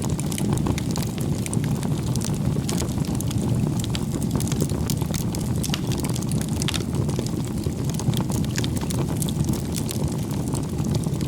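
Wood fire burning with a steady low rumble and frequent sharp crackles and pops.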